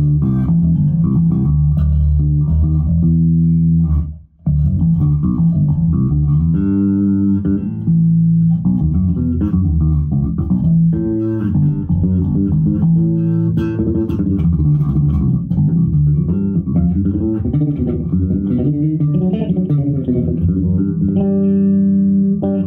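Kodera six-string electric bass played through an amp: a running line of plucked notes, briefly stopping about four seconds in. The bass control on its onboard 18-volt preamp is boosted, adding low end while keeping the instrument's gritty midrange outline.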